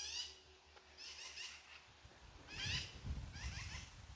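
Wild songbirds singing faintly: short phrases of quick, high, down-slurred chirps repeated about once a second, with a low rumble in the middle.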